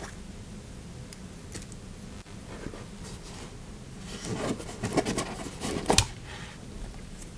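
Slime being handled, with soft scattered clicks at first, then a run of sticky clicks and crackles about four to six seconds in, the sharpest near the end of that run.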